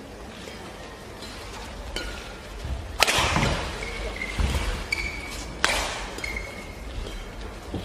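Badminton rackets hitting a shuttlecock back and forth in a rally: sharp cracks about three seconds in and again between five and six seconds, with a lighter one just before. Short high shoe squeaks on the court floor come between the hits.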